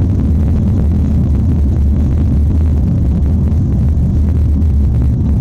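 Steady low rumble of a car driving slowly on a paved road, heard from inside the cabin: engine and tyre noise.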